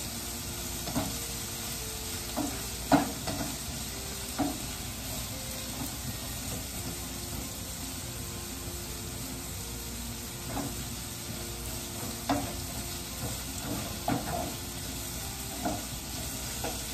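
Diced zucchini, carrots and onions sizzling steadily as they sauté in a frying pan over a gas flame. They are being stirred, and a spatula scrapes and knocks against the pan now and then.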